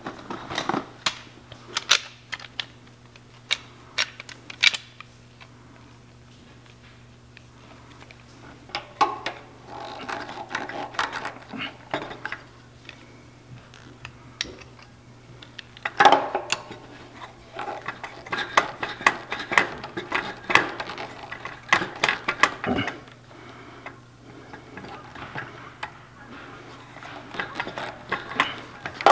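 Hand tools and metal fittings clicking and clinking at irregular intervals while the air compressor's regulator and hose fittings are worked loose, busiest in two spells about ten and about sixteen to twenty-two seconds in. A steady low hum sits underneath.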